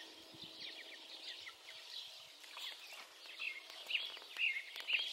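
Young chickens peeping: many short, falling chirps, coming thicker toward the end.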